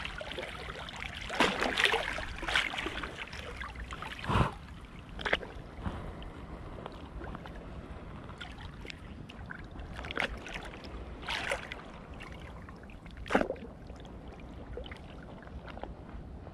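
Shallow sea water lapping and splashing around the angler, with irregular sharper splashes of small waves every few seconds over a low steady rumble.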